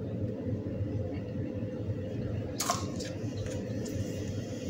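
A steady low hum, with one sharp plastic click about two and a half seconds in and a few lighter clicks after it: a plastic popsicle-mold lid with its stick being pressed onto a filled mold.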